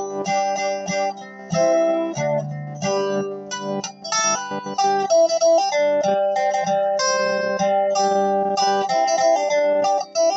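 Guitar playing a picked melody of quick changing notes over sustained low notes.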